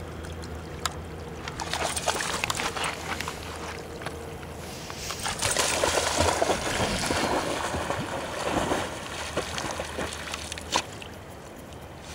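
River water splashing and sloshing around a blue heeler (Australian cattle dog) as it wades and swims. The splashing is busiest from about five seconds in to about nine.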